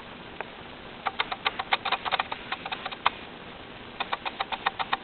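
A puppy's claws clicking on the kitchen floor as she scampers about, in quick irregular runs of light clicks about a second in and again near the end.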